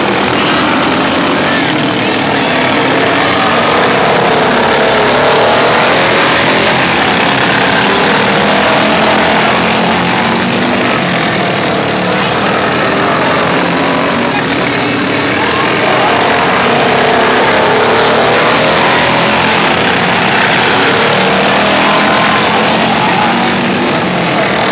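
Several racing lawn mower engines running hard at once, their pitches rising and falling as they rev through the race.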